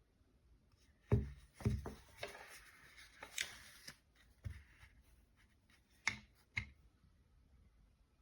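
Handling noises: several short knocks and clicks, with a stretch of rubbing and rustling between them.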